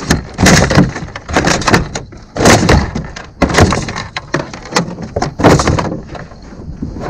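A landed northern pike thrashing on a plastic boat's deck and hull: a run of loud, irregular thumps and slaps, about one a second, as it is held down by hand.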